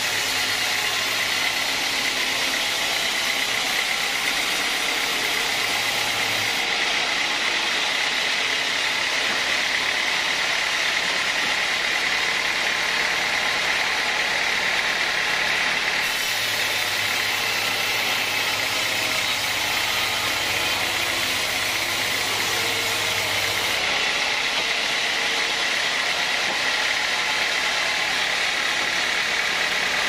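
Sawmill band saw running steadily through a teak log, a constant mechanical noise. A lower hum and a hiss join in twice: at the start for about six seconds, and again for about eight seconds past the middle.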